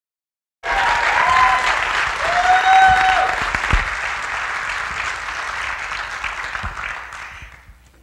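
Audience applauding, with a few pitched whoops of cheering in the first few seconds. The applause starts suddenly and dies away near the end.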